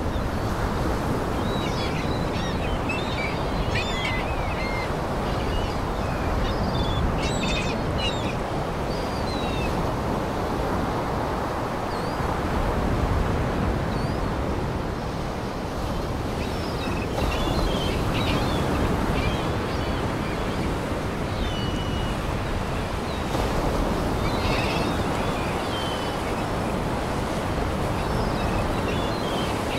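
Steady wind and water noise from an icy lakeshore, with scattered short waterbird calls, clustered a few seconds in and again past the middle.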